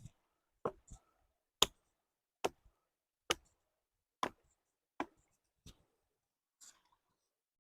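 A series of about eight sharp, separate blows, roughly one a second, struck against wood.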